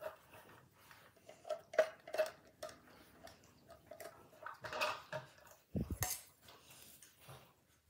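Scale-model Citroën C4 Cactus handled on a hard stone-like worktop: light clicks, small knocks and rattles as it is moved and lifted, then a dull thud a little before six seconds in as it is set back down.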